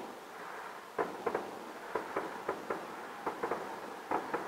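Aerial fireworks going off: an irregular, quick series of about a dozen sharp bangs and pops, some in close pairs and triplets, each trailing off in a short echo.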